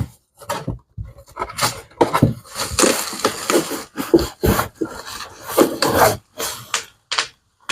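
Cardboard shipping box being opened and its contents handled: irregular scraping and rustling of cardboard and packing, with a longer stretch of continuous rustling about two seconds in.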